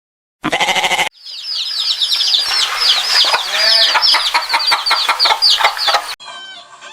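Chickens calling: a dense run of many short, high, falling peeps for about five seconds, after a brief separate call at the start.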